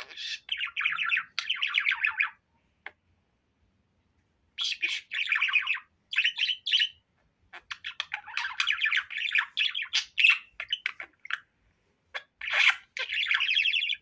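Budgerigar warbling and chattering in runs of rapid, scratchy notes a few seconds long, with short pauses between them.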